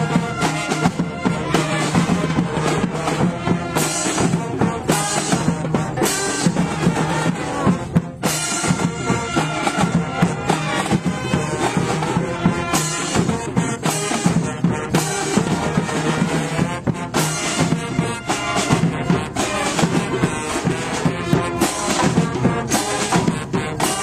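Brass street band playing: trumpets and saxophones over snare and bass drums, loud and driving, with steady drum hits.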